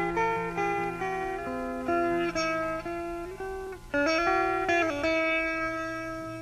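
Background music: a melody of plucked-string notes over a low sustained bass, ending on a long held note that slowly fades out.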